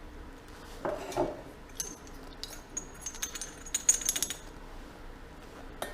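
Small metal parts and tools clinking on a workbench: a dull knock about a second in, then a quick run of light metallic clicks with a high ringing tone lasting a couple of seconds.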